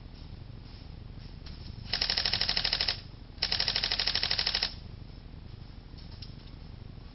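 Airsoft electric gun firing two full-auto bursts, each of rapid, evenly spaced shots and about a second long, with a short pause between them.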